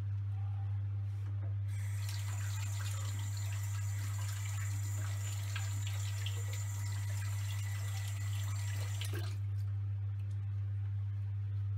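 Tap water running for about seven seconds, starting about two seconds in and stopping suddenly, as a painted plastic model part is rinsed clean before polishing. A steady low hum runs underneath.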